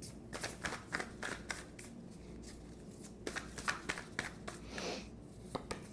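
A deck of tarot cards being shuffled and handled by hand: an irregular run of soft card clicks and flutters, with a short sliding swish near the end.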